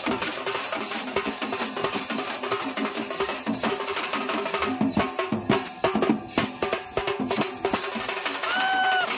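Several hand drums pounded in fast, dense, continuous rhythm, with a steel bowl struck along with them. A short held tone sounds near the end.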